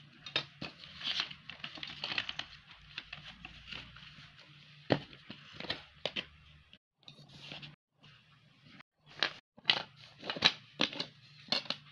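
Marker pen scratching across paper in short strokes, with paper and card being handled and several sharp clicks, most of them in the second half.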